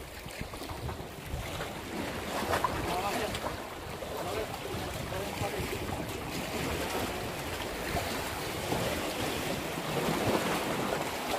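Sea waves washing against shoreline rocks, with wind buffeting the microphone in a steady low rumble.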